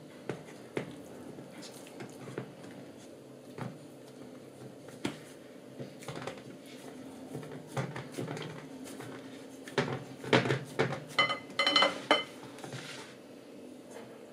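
Soft pats and taps of hands pressing dough into a metal frying pan, then, about ten seconds in, a cluster of knocks and clatter with a brief metallic ring as the pan is shifted on a tiled counter.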